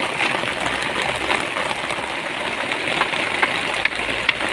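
Heavy rain falling steadily, with a few sharp knocks of a hammer striking bamboo poles, mostly in the second half.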